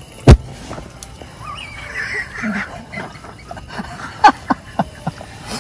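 A single loud, sharp knock, then a brief wavering voice, then four quick sharp clicks near the end.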